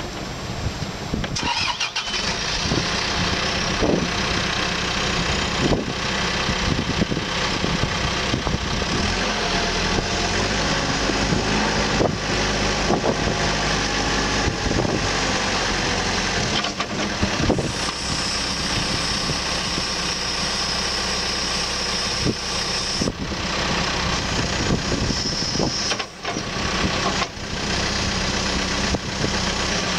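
Caterpillar 430E backhoe loader's diesel engine starting about two seconds in, then running steadily at idle.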